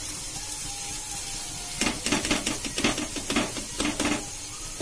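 Shallot and tomato masala sizzling in a non-stick frying pan; about two seconds in, a plastic spatula stirs and scrapes through it in a quick run of strokes for a couple of seconds.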